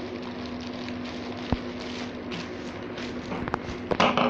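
Clear polythene packaging crinkling and rustling as hands rummage through bagged accessories. There is a sharp click about a second and a half in, and a louder burst of crinkling near the end.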